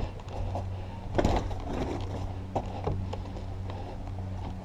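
Scattered scuffs, rustles and light clicks of a person moving with gear, with a louder scuff about a second in, over a steady low hum.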